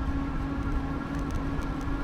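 Rumble of wind and road vibration picked up by a handlebar-mounted camera on a moving bicycle, with a constant steady hum throughout and a few faint light ticks.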